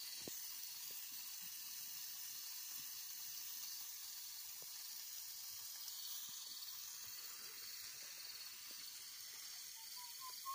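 Faint, steady high-pitched hiss of outdoor ambience with no distinct source, and two or three faint short chirps near the end.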